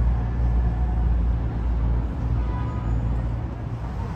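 Street traffic: a steady low rumble of a motor vehicle's engine running close by, easing off slightly in the second half.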